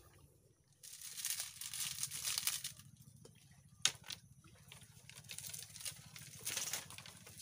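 Rustling, crinkling noise in two stretches, with a single sharp click about four seconds in.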